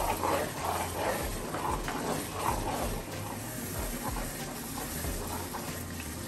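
Onion-and-spice masala frying gently in a frying pan on low heat while a metal spoon stirs it, over a low steady hum.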